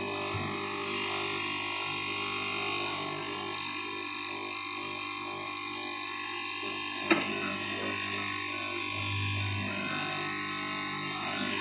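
KM straight knife cloth cutting machine running steadily as its upright reciprocating blade cuts through a stack of fabric layers, with a sharp click about seven seconds in.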